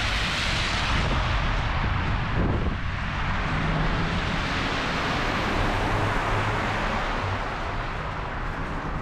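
Strong wind rushing steadily in a snowstorm.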